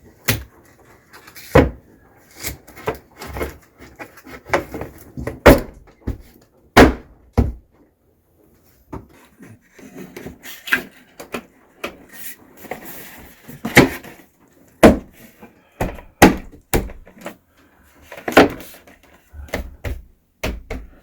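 Irregular wooden knocks and thuds, with handling noise between them, as wooden window jamb boards are handled and fitted into a window opening.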